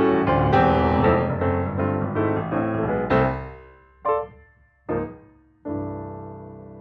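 Background piano music playing to its close: the phrase ends with two short separate chords, then a final held chord that rings on and slowly fades.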